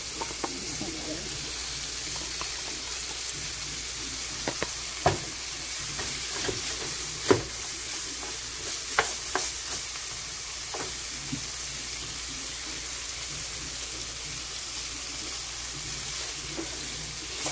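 Sliced sweet peppers, onion and minced garlic sizzling steadily in a nonstick frying pan, stirred with a wooden spoon that knocks and scrapes against the pan now and then.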